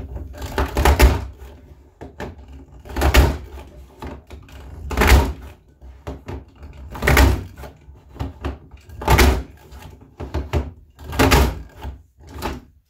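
Creative Memories Border Maker punch cartridge (spiky evergreen design) punching a border into cardstock: a loud clunk about every two seconds as the punch is pressed down and slid along to the next position on the paper edge.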